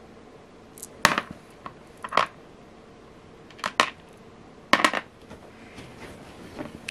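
Small metal beads clicking as they are set down one by one on a hard work surface: a handful of short, sharp clicks, some in quick pairs, with quiet gaps between.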